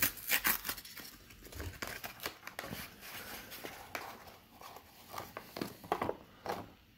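Cardboard card box being torn open by hand and its paper wrapping crumpled: an irregular run of rips and crackles, busiest at the start and again near the end.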